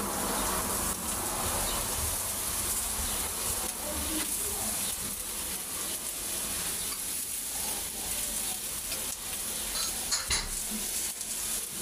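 Peppers, tomatoes and chicken sizzling steadily on a round electric griddle, with a brief sharp click near the end.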